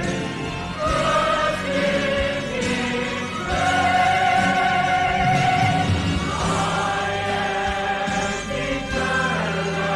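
Baptist church choir singing a gospel song, the voices holding long notes that change pitch every second or two.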